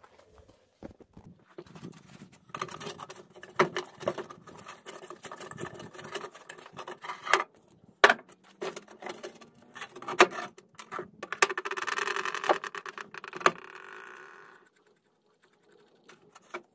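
Clicks and knocks of a metal sand-casting flask being handled on a workbench, with one sharp knock about halfway through. Then comes a few seconds of gritty scraping as oil-bonded Petrobond sand is dug out of the flask with a small metal pick.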